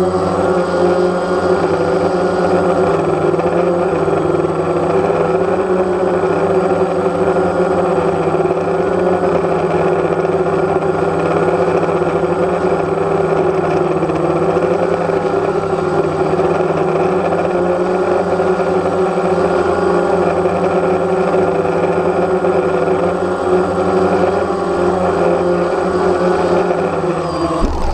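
DJI Phantom quadcopter's electric motors and propellers whirring steadily as it hovers low and descends to land, the pitch wavering slightly. The pitch drops off at the very end as it settles.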